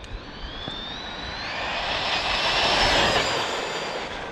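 Tekno ET48 2.0 electric truggy on 6S making its speed pass, with its 1520 1650kV brushless motor on a Castle Mamba Monster X 8S controller. A high-pitched motor whine rises in pitch over the noise of the tyres, swells to its loudest about three seconds in as the truck passes, then drops a little in pitch and fades.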